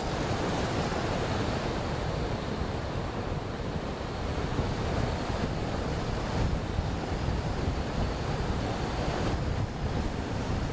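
Wind rushing over the microphone of a camcorder riding on an RC airplane in flight: a steady, loud rush with no clear motor tone standing out.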